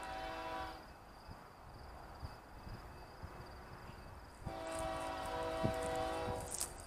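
Distant diesel locomotive horn of BNSF 6390, a chord of several tones: a short blast ending about a second in, then a longer blast of about two seconds past the middle.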